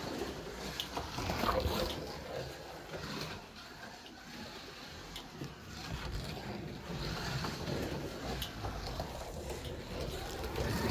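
VK Commodore Scalextric slot car lapping a home track: the small electric motor whirring, with clicks and rattles, getting louder and quieter as the car goes round.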